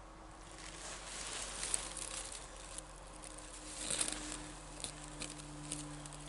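A hand-held bundle of dry tinder and twigs crackling and rustling as it catches fire, with a scatter of sharp snaps.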